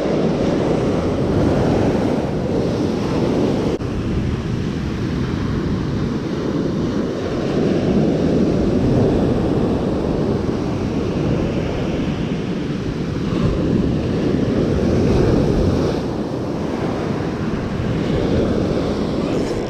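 Ocean surf rushing on the beach, mixed with wind on the microphone; the rush swells and eases every several seconds.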